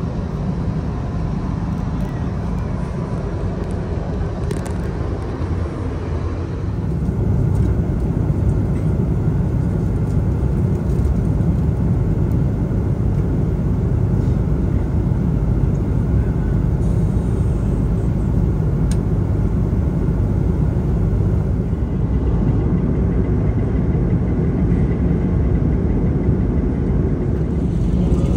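Airliner cabin noise in flight aboard an Airbus A330-300: a steady low rumble and rush of engines and airflow, which steps up in level about seven seconds in.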